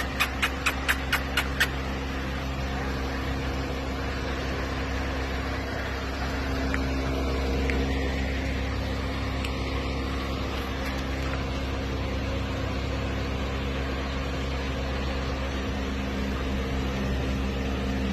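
A steady machine-like hum made of several constant tones under a even hiss, with a quick run of sharp clicks, about six a second, in the first second and a half.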